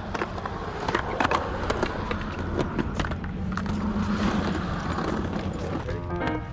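Skateboard wheels rolling on concrete, with several sharp clacks of the board. Near the middle a truck grinds along a ledge's edge for about a second.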